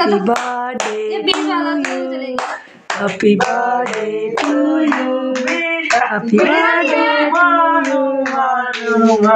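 A small group singing a birthday song together, clapping along in time at about two claps a second.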